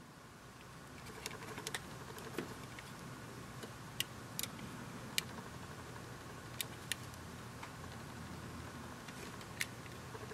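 Light scattered clicks and taps of a pair of plastic-framed sunglasses being handled and turned in the fingers, about ten in all, over a faint steady hiss.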